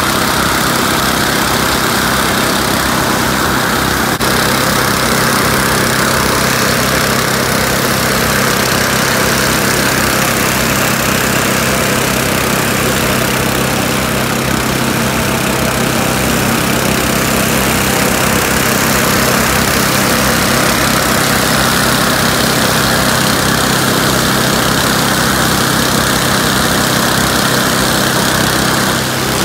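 Small petrol engine of a hot-air balloon inflator fan running steadily, a constant engine drone under a rushing of blown air.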